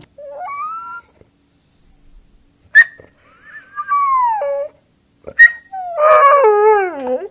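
Dachshund whining and howling in a string of drawn-out calls that slide up and down in pitch, broken by a couple of short sharp yips; the last call is long and falls steadily in pitch.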